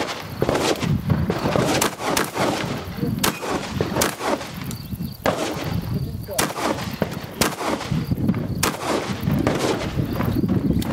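Shotgun fired in a string of shots, roughly one a second with uneven gaps, as the shooter works through a practical shotgun course of fire.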